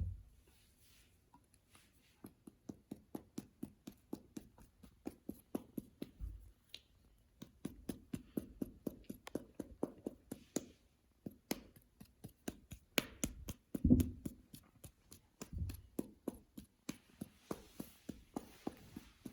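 Hands working slime: fingers pressing and poking it give runs of small sharp clicking pops, about four or five a second, with short pauses between runs and one louder squelch about 14 seconds in.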